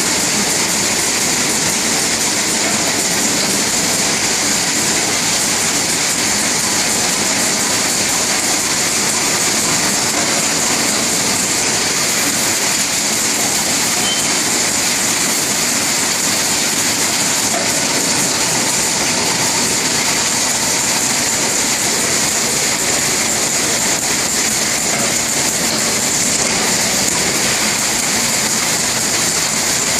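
Rotary automatic pouch-packaging machine running steadily, a constant mechanical hiss and rumble with no distinct rhythm.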